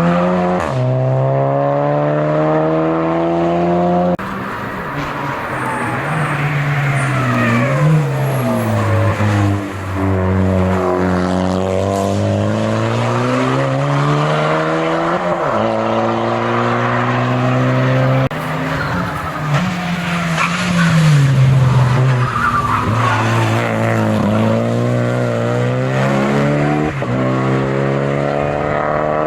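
Race car engine under hard acceleration, revving up through the gears with sudden drops in pitch at each upshift. Several times the revs sag and swing back up as it slows for bends and pulls out again.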